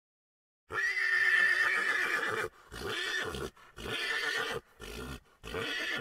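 A horse whinnying. One long high call starts about a second in, followed by a run of shorter pulses.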